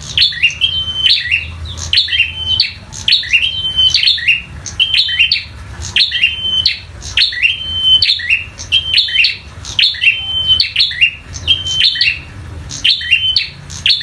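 A prinia (prenjak) calls in a fast, unbroken series of fighting calls, about two a second; each is a sharp note with a short held whistle. A low hum runs underneath.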